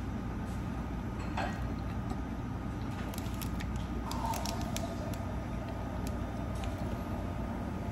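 Steady low rumble of background noise, with a scatter of faint short clicks about three to five seconds in.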